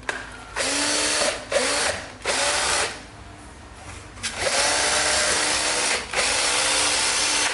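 Cordless drill with a wood auger bit, run free in the air on a rebuilt battery pack. The trigger is pulled five times, and the motor whine climbs quickly to speed each time: three short runs, a pause of about a second, then two longer runs.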